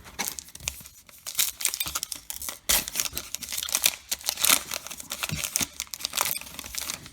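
A baseball card pack's wrapper being torn open and crinkled, an irregular run of crackling and tearing.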